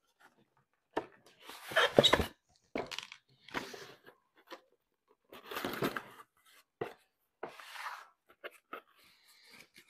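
A cardboard box being slid out of its paper sleeve and its flaps opened: a string of short scraping and rustling sounds with light knocks between them, loudest about two seconds in.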